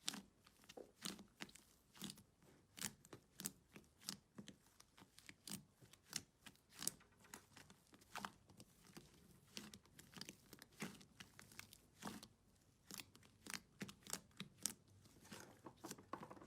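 Slime being handled and squished, giving irregular sharp crackling pops and clicks, a few a second.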